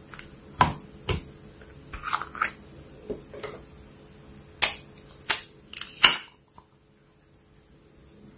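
Slime being squeezed and poked, giving about ten sharp, sticky pops and clicks in quick succession, which stop about six and a half seconds in.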